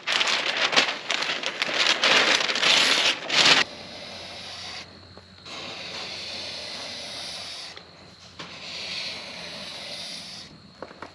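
Masking paper and tape crackling and crinkling as they are peeled and balled up off freshly painted window trim. After that comes a quieter, steady rubbing hiss that stops twice.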